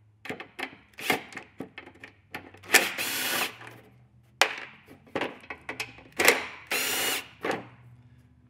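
Cordless Makita impact driver with a T27 Torx bit backing out fender bolts: two bursts of rapid impact hammering, each under a second and about four seconds apart. Between the bursts come clicks and knocks from handling the tool and bolts.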